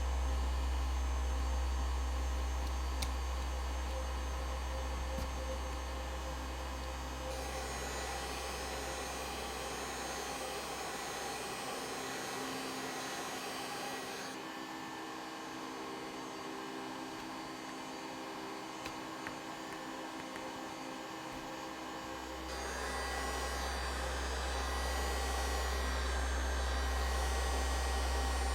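Heat gun blowing steadily with a low hum, used to soften the adhesive tape holding a laptop battery. The hum drops away for several seconds in the middle, then comes back.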